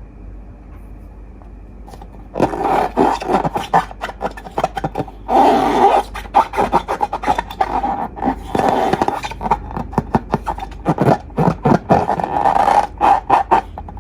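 Slime being squished and worked by hand: dense sticky crackles, clicks and squelches, beginning about two and a half seconds in after a quiet start.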